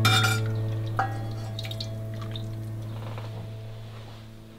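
A metal ladle clinks twice against the pot and bowl while soup drips and trickles from it into a ceramic bowl, over a held background-music chord that fades out.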